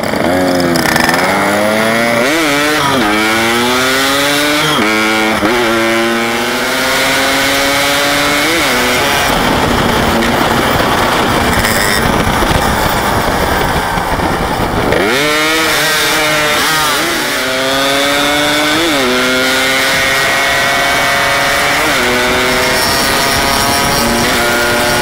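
Yamaha RX-King 135cc two-stroke single-cylinder motorcycle engine accelerating hard through the gears, its buzzing note climbing in pitch and dropping back at each shift. About the middle, the engine note gives way for several seconds to a steady rushing noise before the climbs through the gears start again.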